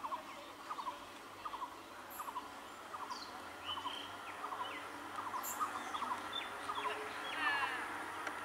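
Birds chirping, short calls repeated about twice a second, with a brief warbling phrase about seven seconds in. A faint steady high whine sits underneath from the middle on.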